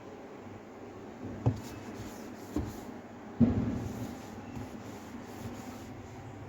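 Cloth rubbing and wiping over a dishwasher part, with three short knocks in the first half, the last the loudest.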